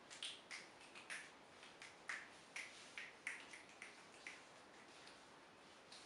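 Faint footsteps clicking on a tiled floor, about two light taps a second, stopping a little over four seconds in.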